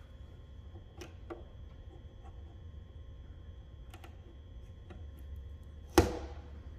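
Faint ticks and scrapes of dental floss being sawed back and forth behind a car's hood badge to cut its adhesive, over a steady low hum. A single sharp, loud snap comes about six seconds in.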